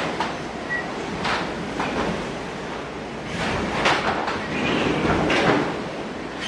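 Hurricane-force wind blowing hard and continuously, swelling into a stronger gust in the middle. Several sharp knocks and bangs sound through it, from debris striking the house.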